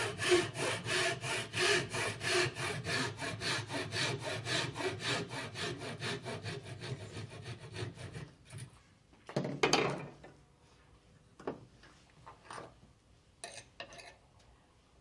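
Hand sawing wood with a traditional Chinese frame saw: quick, even back-and-forth strokes at about three a second, growing fainter and stopping about eight seconds in. A single short, louder scrape follows near the ten-second mark, then a few light taps.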